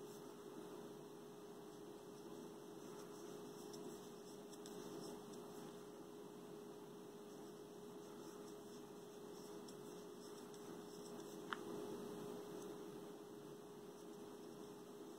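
Quiet room tone: a faint, steady electrical hum over low hiss, with one small sharp click about three quarters of the way through.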